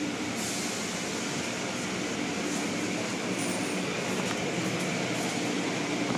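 Automatic car wash heard from inside the car: spinning cloth brushes scrubbing over the windows and body, a steady rushing noise.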